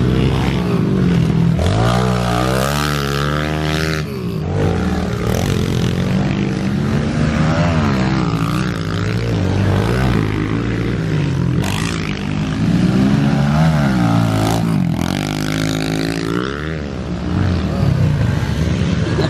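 Pit bike engines, 110cc four-stroke singles, revving up and falling back again and again as the bikes ride the dirt track, with more than one bike heard at once.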